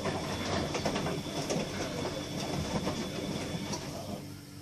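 Bosch washing machine running in its rinse stage: a rough rumbling clatter that dies down about four seconds in, leaving a low steady hum.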